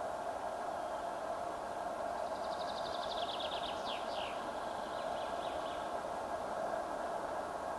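A steady, even background rush. About two seconds in, a songbird sings one phrase: a fast trill that steps down in pitch and ends in two quick sweeps, followed by a few faint notes.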